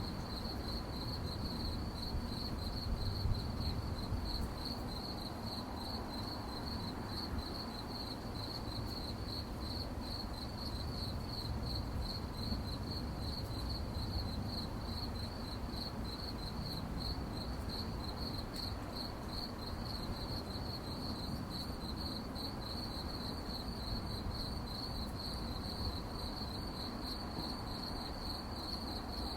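Crickets chirping in a steady, evenly pulsed high trill over a low background rumble.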